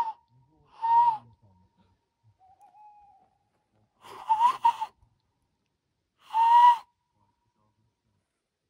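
A person imitating an owl's hoot: four loud, breathy hoots, the third broken in two. A faint answering hoot comes a couple of seconds in.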